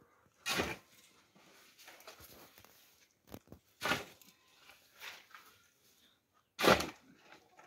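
Metal shovel digging into dry, stony earth: three scoops about three seconds apart, each a short gritty scrape, the last the loudest.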